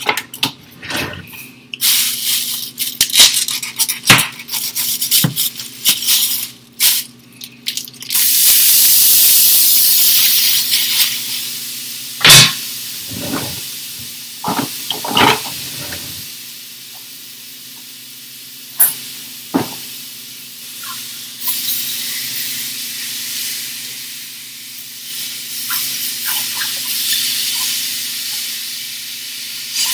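Plastic wrap on a package of raw ground turkey crinkling and tearing, then the meat dropped into a hot cast iron skillet and sizzling loudly about eight seconds in. The sizzle fades slowly, with a few sharp clanks of a utensil against the pan.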